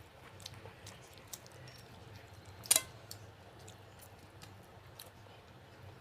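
Chewing and small wet mouth clicks of people eating fish curry, with one sharp click about two and a half seconds in.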